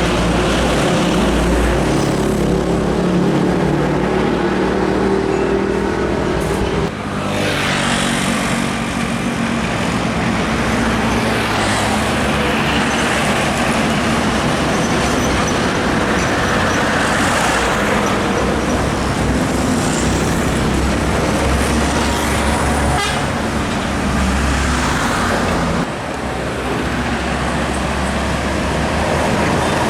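Heavy trucks passing along a busy highway: diesel engines running with tyre and traffic noise, and horns tooting. The sound breaks off abruptly twice, about seven seconds in and near the end.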